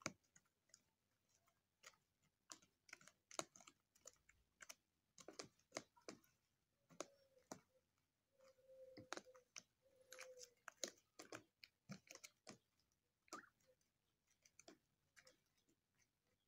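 Turkeys pecking and tearing at sprouted wheat grass in a plastic crate: faint, irregular clicks and snips of beaks. A few short, soft low calls come from the flock about seven to ten seconds in.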